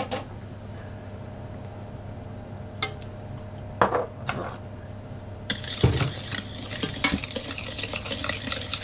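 A few light clicks as melted butter is poured into the egg-yolk mixture. About halfway through, a steady scraping swish starts as the batter is stirred in a plastic mixing bowl.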